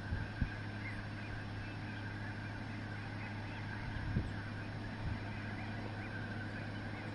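A large flock of ducks and geese calling continuously, a dense distant chatter of overlapping honks and quacks, over a steady low hum, with a couple of soft handling bumps.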